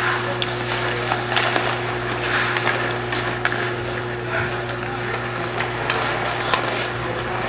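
Ice hockey play on a rink: skate blades scraping the ice and several sharp clacks of sticks and puck, over a steady low hum and distant voices.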